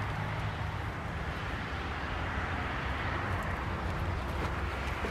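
Steady outdoor background noise: a low rumble with an even hiss above it, with no distinct events.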